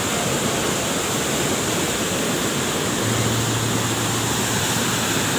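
Waterfall pouring: a steady, even rush of falling water. A low steady hum joins it about three seconds in.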